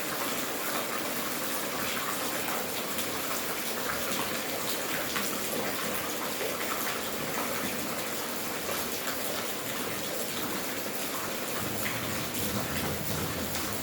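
Steady rain falling, with many scattered sharp drop hits over an even hiss.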